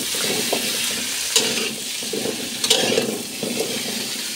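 A metal spatula stir-frying chunks of white radish, carrot and shiitake in a sizzling wok: a steady hot-oil sizzle with the vegetables clattering as they are turned, and two sharp scrapes of the spatula on the wok, at about a second and a half in and again nearly three seconds in.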